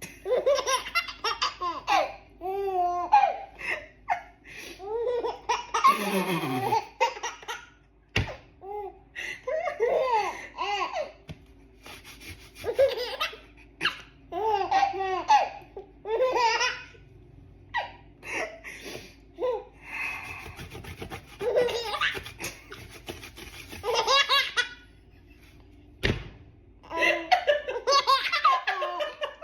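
Baby laughing hysterically in repeated bursts of deep belly laughs, with short pauses for breath between them.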